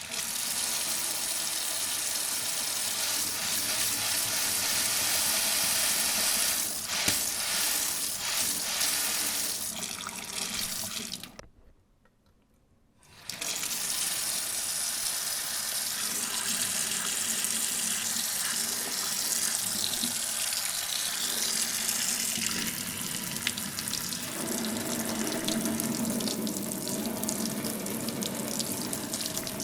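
Kitchen tap running steadily into a sink, shut off about eleven seconds in and turned on again about two seconds later. In the last few seconds the running water takes on a fuller, lower tone.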